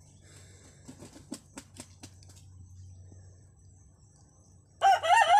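A few faint clicks, then near the end a rooster starts crowing loudly.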